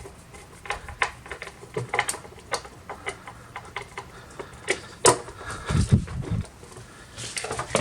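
Scattered clicks and taps of screwdrivers and hands handling a desktop all-in-one PC's plastic case, with a few low thumps about six seconds in.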